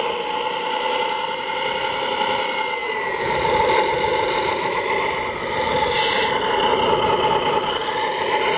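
A scale RC Jeep Wrangler JK crawler running through loose sand, with a steady mechanical whine from the truck.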